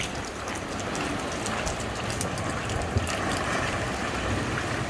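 Rain falling steadily, with individual drops ticking irregularly close to the microphone over an even wash of noise, and one sharper tap about three seconds in.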